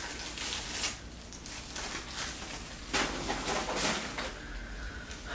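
Handling noise from a potted plant in a small plastic nursery pot being turned over in the hands: soft rustles and light plastic scrapes, loudest about three seconds in.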